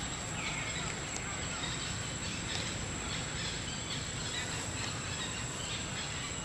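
Outdoor forest ambience: a steady hiss and low rumble with a thin, unchanging high whine, and faint bird chirps every couple of seconds.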